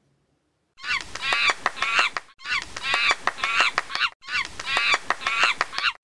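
Monkey calls: high chattering cries with sharp clicks. They come in four near-identical bursts of about a second and a half each, starting about a second in.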